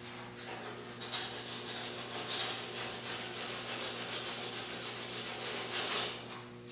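Hand sanding body filler on a car's steel roof pillar: a run of quick, even back-and-forth rasping strokes that starts about a second in and stops near the end.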